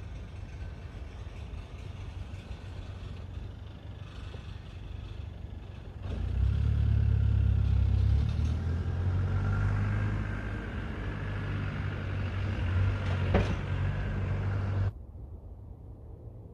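Low mechanical rumble from the car factory. It grows much louder about six seconds in, has a short sharp click a little after thirteen seconds, and drops away suddenly about fifteen seconds in.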